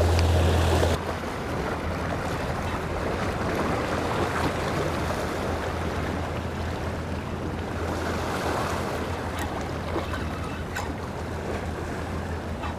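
Sea surf washing against the rocks of a jetty, a steady wash of water, with wind on the microphone giving a low rumble that drops away about a second in.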